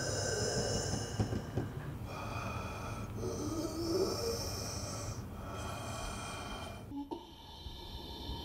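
Breathing sounds from the ghost woman, about four long noisy breaths over a low drone, cutting to a quieter stretch about seven seconds in.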